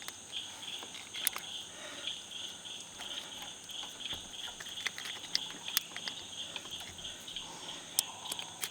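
Insects chirping in a steady, pulsing chorus, with a few sharp clicks.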